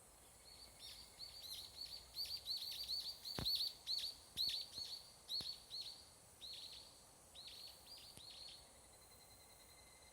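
Evening cicada (higurashi, Tanna japonensis) calling: a fast, high-pitched series of falling notes. It swells to its loudest partway through, then slows and fades out a little over a second before the end, leaving a faint steady high trill from more distant cicadas.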